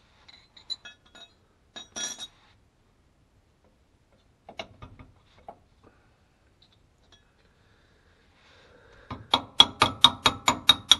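A few scattered metal clinks of tools, then from about nine seconds in a socket ratchet clicking rapidly and evenly, about six clicks a second, as a bolt is turned on the shock absorber mount.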